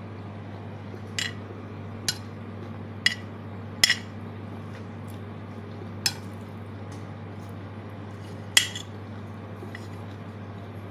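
Metal spoon clinking against a plate in six separate sharp taps spread over several seconds, over a steady low hum.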